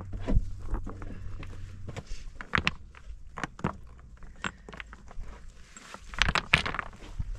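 Rough fieldstones clacking and knocking against one another as they are picked up and set in place by hand, in irregular single knocks. A quicker, louder cluster of knocks comes about six seconds in.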